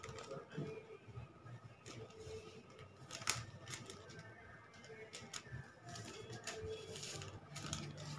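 Faint rustling and scattered light clicks of a macrame cord being handled, wrapped and pulled through a knot on a cloth-covered surface, with one sharper click about three seconds in.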